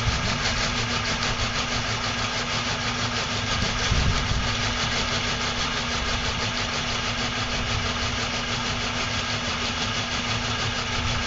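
Electric auger motor of a flexible coal-auger feed running steadily, a constant hum with an even rattle, and a brief low thump about four seconds in.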